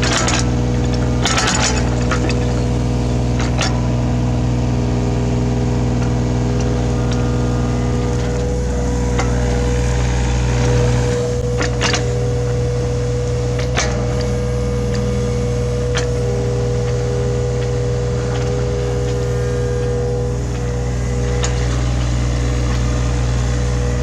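Hitachi Zaxis 33U mini excavator's diesel engine running steadily under work, with a steady high hydraulic whine over the engine hum. A few sharp knocks and clicks stand out now and then.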